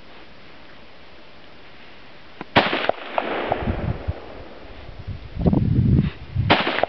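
SWT-40 sniper rifle firing: a loud, sharp shot about two and a half seconds in that rings away, then a second sharp report near the end, with low rumbling noise in between.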